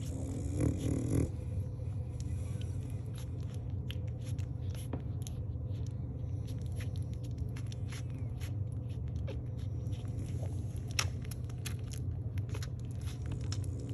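Week-old French bulldog puppies suckling, a run of quick wet smacking and clicking sounds over a steady low hum, with a short louder burst about a second in.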